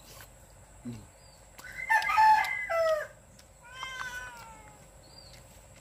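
Rooster crowing once, about two seconds in, a call of just over a second that holds its pitch and then drops at the end. A second, fainter call follows shortly after.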